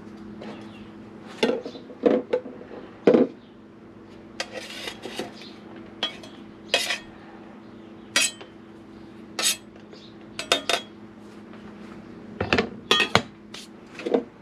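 Dishes and metal utensils clinking and knocking against each other and the counter, in irregular separate knocks with a few clusters, some leaving a short ring.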